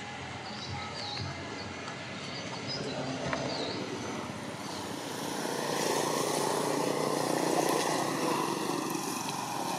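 A motor vehicle's engine passing, getting louder a few seconds in and easing slightly near the end, with a few short high chirps in the first seconds.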